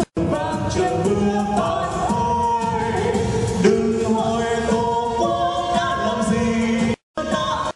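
A man and a woman singing a duet into handheld microphones over musical accompaniment. The sound drops out briefly twice, right at the start and about seven seconds in.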